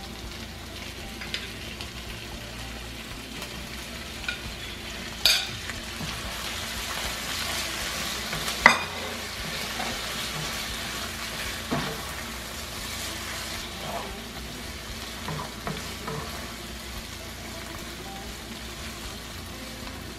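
Raw shrimp sizzling and frying in oil with onions and tomato paste in a frying pan while being stirred with a wooden spatula. A few sharp clacks of the utensil against the pan come about 5, 9 and 12 seconds in.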